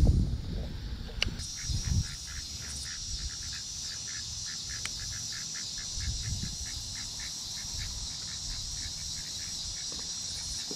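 Evening insect chorus, a steady high buzz, with a rapid repeated chirping call of about four notes a second running through it. A few low thumps come in the first two seconds.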